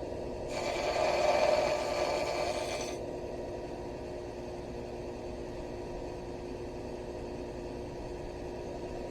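A machine hums steadily. About half a second in, a louder scraping, grinding sound starts and lasts about two and a half seconds.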